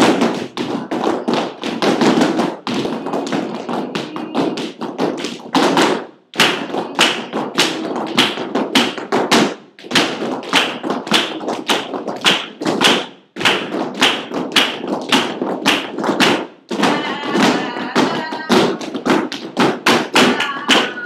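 Flamenco footwork (zapateado): a group of dancers' heeled flamenco shoes stamping and tapping on the studio floor in a steady run of sharp strikes, several a second, broken by a few brief pauses.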